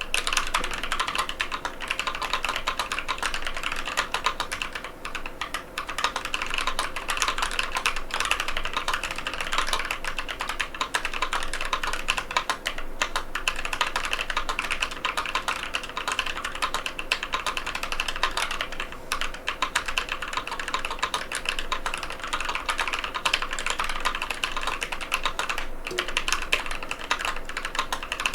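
Fast, continuous typing on a NovelKeys NK87 aluminium-case mechanical keyboard with KTT Matcha tactile switches: a dense run of keystroke clacks with only brief pauses.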